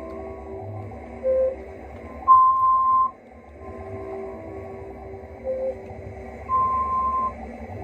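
Electronic tones. A high beep lasting under a second sounds twice, with two short lower blips between, over softer held tones and a low rumble.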